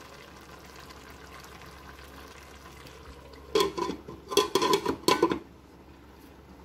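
Vegetables cooking in a metal karahi with a faint, steady sizzle. About three and a half seconds in, a metal lid clatters onto the pan in several sharp, ringing clanks as it is set in place. The sizzle continues faintly after the clanks.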